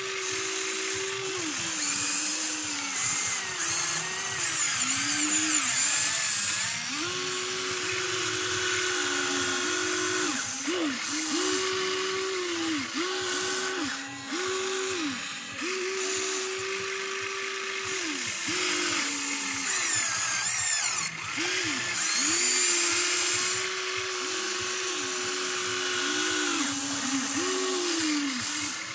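Huina RC excavator's electric motors whining as the boom, arm and bucket move. The pitch steps up and down every second or so as each movement starts and stops, and thin high whines glide in and out.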